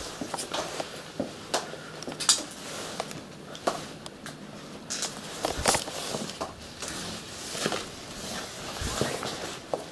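Footsteps scuffing and crunching over debris on a hard floor, with irregular clicks and knocks.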